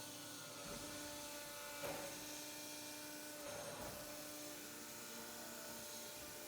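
Metal baler's hydraulic power unit running with a steady electric hum, with a couple of faint knocks about two seconds and four seconds in.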